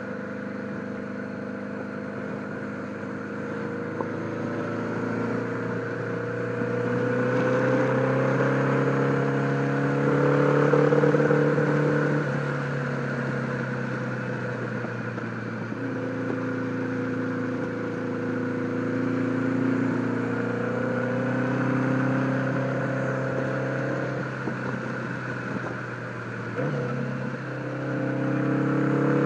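1976 Honda Gold Wing GL1000's flat-four engine running under way through its old mufflers, which are a little on the loud side, heard through a helmet microphone. The engine note climbs and eases off several times as the throttle is worked, with a brief dip near the end before it picks up again.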